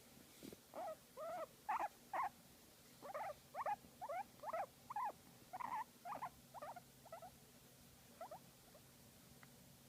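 Guinea pig giving a run of short squeaks, about two a second, some bending up and down in pitch, thinning out near the end.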